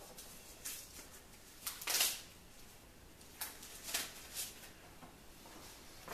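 Scattered soft rustles and handling noises of hands pulling off work gloves and picking small parts out of a plastic tub, the loudest about two seconds in.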